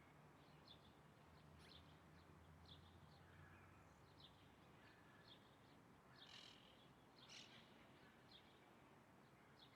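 Faint bird chirps: short, high calls repeating irregularly, two of them a little louder around six to seven seconds in, over a low background hiss.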